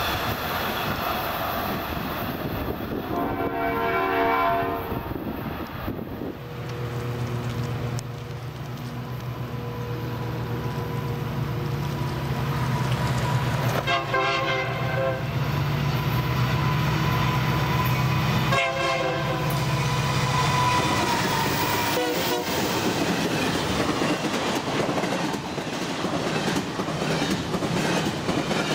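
Train air horn blasts a few seconds in and twice more around the middle, over the building hum of an approaching Union Pacific diesel freight locomotive. From about two-thirds of the way through, the rumble and wheel clatter of double-stack freight cars rolling past takes over.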